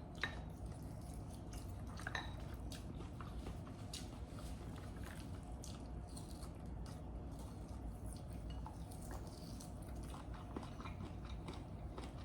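Quiet eating sounds: scattered light clicks and clinks of utensils and bones against dishes, with some chewing, over a steady low background hum.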